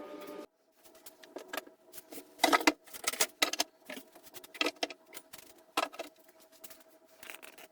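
A steady sound cuts off about half a second in, then irregular sharp clicks, taps and knocks of handling in the workshop, loudest a couple of seconds in, over a faint steady hum.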